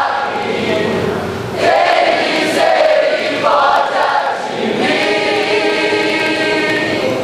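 Large congregation singing together loudly in a worship chorus, the many voices rising in phrases.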